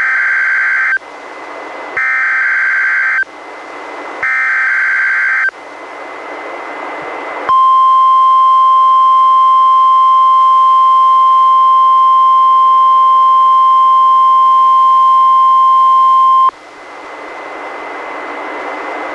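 NOAA Weather Radio Emergency Alert System test: three SAME header data bursts, each about a second long with hiss between them. Then a steady 1050 Hz warning alarm tone holds for about nine seconds and cuts off suddenly into radio hiss. Together they make the weekly test of the weather radio warning alarm.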